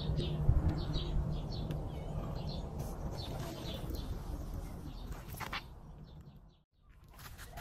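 Outdoor ambience: birds chirping now and then over a low rumble. The sound drops away to near silence about six and a half seconds in, then returns.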